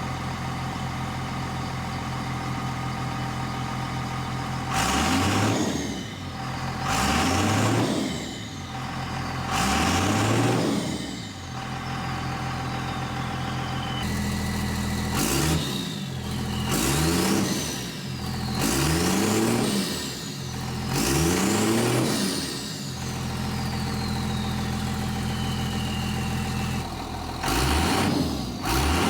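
Cummins 5.9 L turbo-diesel of a 2000 Ram 2500 idling through a 3-inch exhaust and being revved in short blips, about three in the first half and five in the second, with the turbo whistling down in pitch after each rev. The two halves are different recordings spliced together, comparing the exhaust set-ups.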